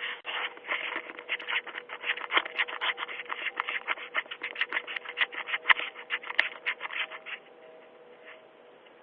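Rapid scratching and rubbing right against a Ring video doorbell's microphone, a fast, uneven run of scrapes that stops about seven seconds in.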